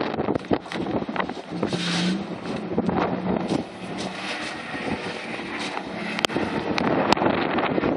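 Dust-storm wind gusting hard over the phone's microphone, a loud rushing roar broken by scattered sharp knocks and clatter.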